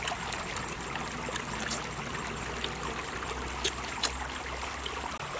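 Small stream trickling steadily over rocks, with a few short, sharp clicks and taps over it.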